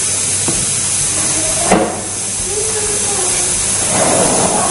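Plastic spatula stirring and scraping a batter of rice flour, tapioca flour and coconut milk in a non-stick frying pan, with one sharp knock against the pan nearly two seconds in, over a steady hiss.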